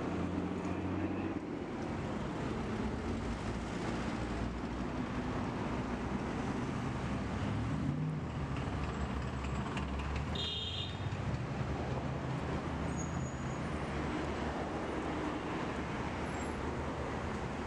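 Street traffic noise: a steady hum of car and bus engines and tyres on a busy road. A brief high-pitched tone sounds about ten seconds in.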